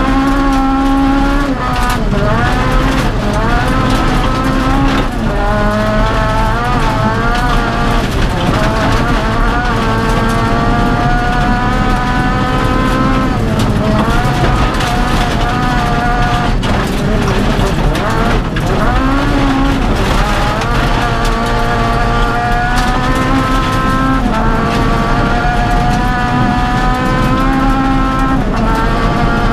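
Honda Civic Type-R rally car's four-cylinder engine at full throttle, heard from inside the cabin: the pitch climbs through each gear and drops back at every shift, again and again. A steady rush of tyres on gravel runs underneath.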